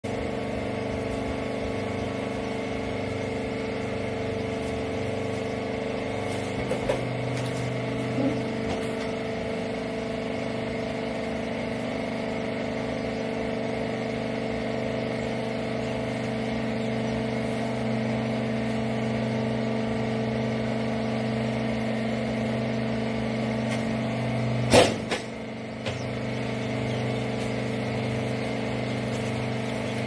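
Hydraulic rag baler's power unit (electric motor driving the hydraulic pump) running steadily with a hum of several fixed pitches. A few light knocks come about a third of the way in, and one sharp loud knock comes about five seconds before the end.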